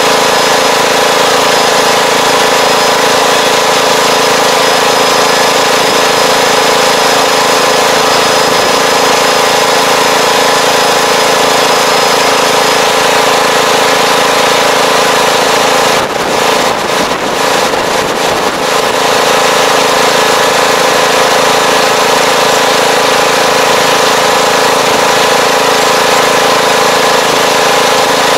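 Tractor engine running loud and at a steady speed as the tractor drives along a tilled field, heard close to the machine. A little past halfway there is a short run of brief rattling knocks over a couple of seconds.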